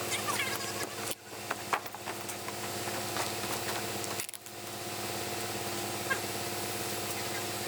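An engine running steadily at a constant speed, a continuous drone, dipping briefly twice, with scattered faint clicks over it.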